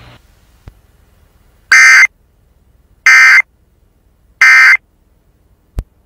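Emergency Alert System end-of-message (EOM) tones: three short, loud, buzzy bursts of SAME digital data, each about a third of a second long and just over a second apart, closing a Required Weekly Test broadcast.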